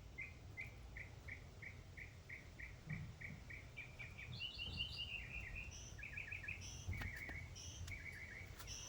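Garden birds chirping: a steady series of short, evenly spaced chirps, about two or three a second, through the first half, then quicker, varied chirps from more than one bird in the second half, over a faint low rumble.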